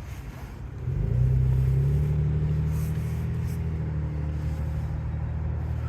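A motor vehicle's engine running steadily with a low hum, getting louder about a second in and holding.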